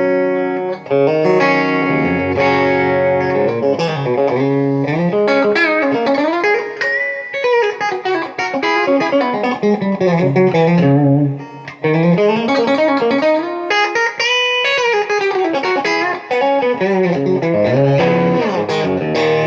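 Electric guitar played through an amp by way of a wireless guitar transmitter: a few held chords at first, then a lead line full of bent, gliding notes.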